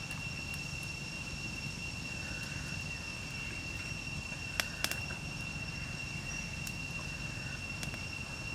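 Small open wood fire burning with a low rush and a couple of sharp crackles about halfway through, under a steady high-pitched insect drone.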